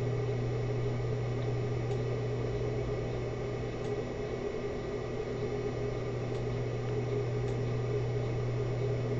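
Steady low electrical hum with a light even hiss: background room tone on the recording, with no birdsong or other events.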